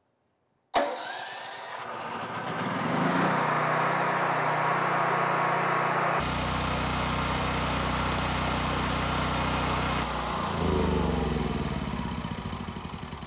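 Westinghouse WGen7500DF generator's single-cylinder four-stroke engine started by push button with its automatic choke, catching almost at once about a second in and rising to a steady run. Near the end the engine sound fades away with slowing pulses, as the engine winds down after being switched off.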